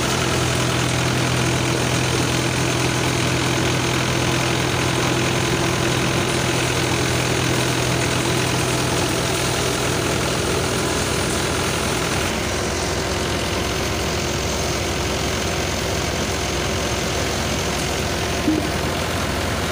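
Mahindra 575 DI tractor's diesel engine driving a Sonalika PTO paddy thresher, a steady machine drone of engine and spinning threshing drum. About twelve seconds in the low hum drops away, and there is one short knock near the end.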